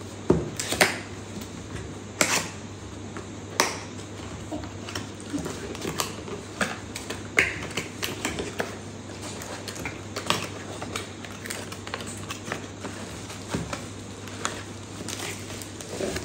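Cardboard camera packaging being handled and opened: an inner box lifted and slid out of its sleeve, with irregular sharp clicks, taps and rustles, the loudest in the first few seconds. Plastic bubble wrap rustles near the end as the camera is taken out.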